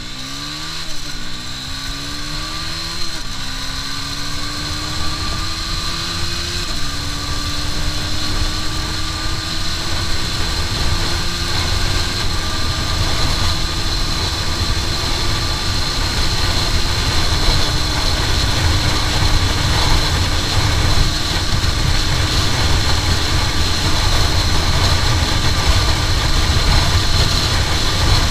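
Aprilia RS4 125's single-cylinder four-stroke engine accelerating hard through the gears: its pitch climbs in each gear and drops suddenly at each upshift, the gears lasting longer as speed builds, then holds nearly steady for the last ten seconds near top speed. Wind noise on the microphone grows louder with the speed.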